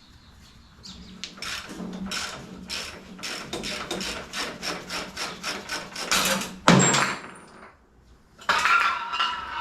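Hand-tool work on metal: a quick run of clicks, about three to four a second, ending in one loud knock. A steady whirring starts near the end.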